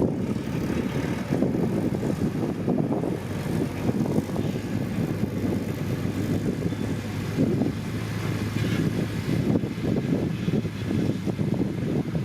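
Diesel engine of heavy earthmoving machinery running steadily, with a constant low drone.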